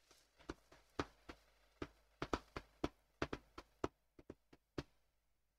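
Faint, irregular light clicks and taps, some fifteen or more in a few seconds, stopping shortly before the end.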